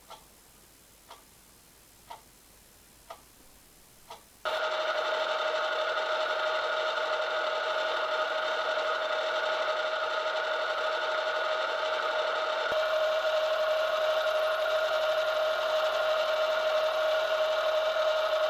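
Faint single ticks about once a second. About four and a half seconds in, a machine starts up suddenly and runs with a steady, even whine.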